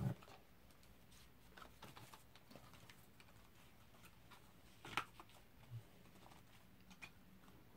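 Near silence with faint, scattered clicks and taps from hands handling a pair of over-ear headphones as they are put on; one sharper click comes about five seconds in.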